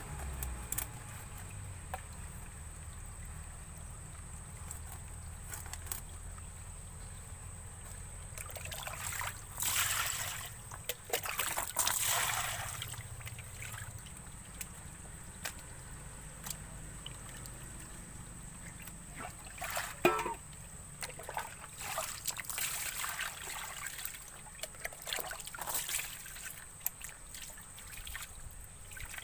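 Water trickling and sloshing in two longer spells, with scattered light clicks and knocks in between.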